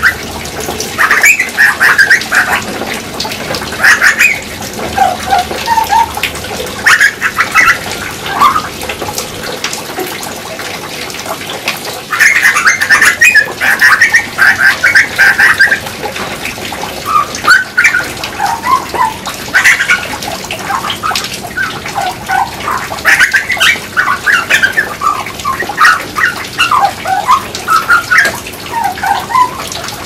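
Grey butcherbird singing: short phrases of lower gliding whistled notes and quicker higher notes, repeated every couple of seconds, with a longer unbroken run about twelve seconds in.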